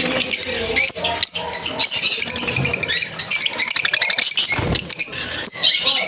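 Caged lovebirds chirping and chattering, many shrill short calls overlapping, with a rapid trilled chatter a little before the middle.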